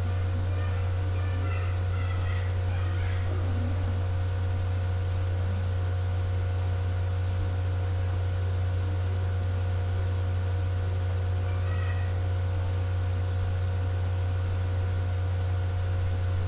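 A steady, unchanging low electrical hum with fainter steady higher tones above it. A few faint bird calls come in the first few seconds and again about twelve seconds in.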